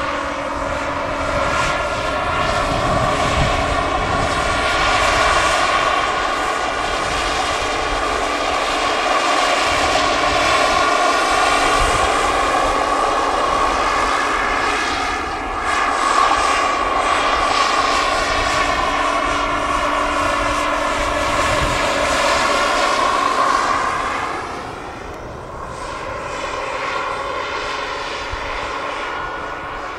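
Radio-controlled scale Bell 429 helicopter with a small gas turbine engine in flight: a steady turbine whine over rotor noise. The pitch bends as it passes and the sound drops in level about three quarters of the way through as it moves off.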